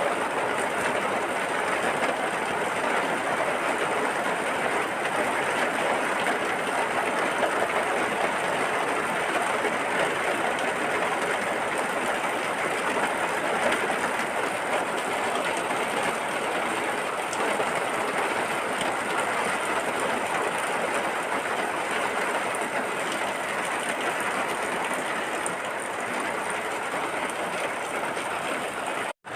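Steady heavy rain, an even hiss with no rhythm, that cuts out for an instant near the end.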